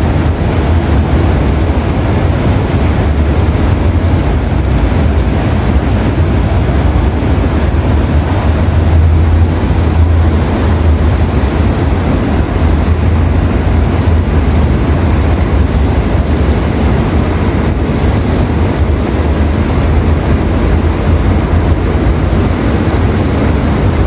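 Steady low wind rumble on the microphone over the constant rush of water in a shallow fountain pool.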